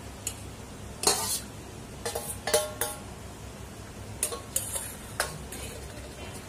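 Metal ladle and lid clinking and knocking against a metal kadai of simmering curry: about half a dozen sharp clanks, some ringing briefly, over a steady low background hum.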